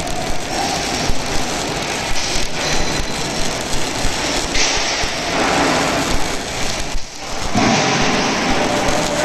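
Welding arc crackling and sizzling steadily as a welding carriage runs the torch along the joint, with a brief drop about seven seconds in.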